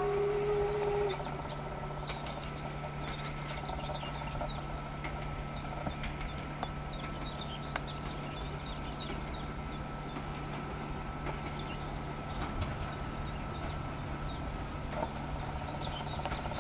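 A steam locomotive's whistle ends about a second in. It is followed by the steady, fairly quiet rumble of the approaching steam train, with small birds chirping in quick high notes throughout.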